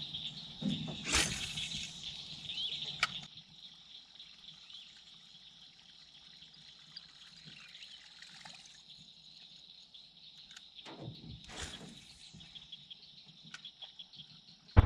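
Steady high insect buzz over a pond, with two short splashy water noises, about a second in and again toward the end, as a buzzbait is cast and worked across the surface.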